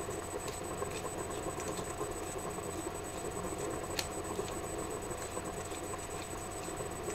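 Wooden pepper mill being twisted to grind black pepper, a run of faint crunching clicks with one sharper click about four seconds in, over a steady low hiss.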